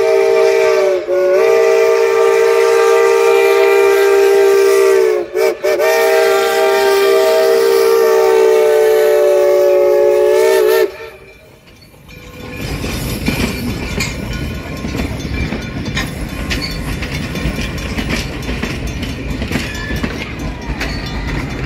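Steam locomotive whistle blowing one long blast on a chord of several notes, dipping briefly twice and cutting off about eleven seconds in. After a short lull, the 2-8-0 steam locomotive and its train roll past with a loud rumble and wheel clatter.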